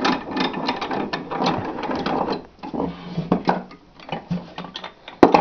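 Cast-iron Columbian D44 M2 machinist's bench vise being worked by hand: its metal parts clatter in quick clicks and rattles for about two seconds, then give sparser clicks and one sharp click near the end.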